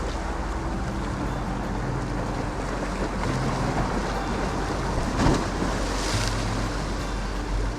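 Sea waves washing on a rocky shore with wind buffeting the microphone, a louder wash about five seconds in.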